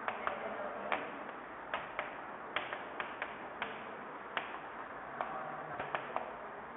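Chalk tapping and scraping on a chalkboard as words are written: irregular sharp taps, one or two a second, over a faint steady hiss.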